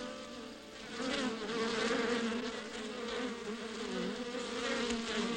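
A swarm of honeybees buzzing around their hives: a steady droning hum that wavers in pitch.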